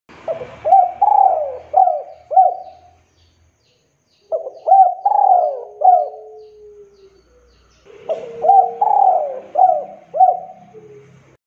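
Male spotted dove singing: three cooing phrases of four or five coos each, about four seconds apart.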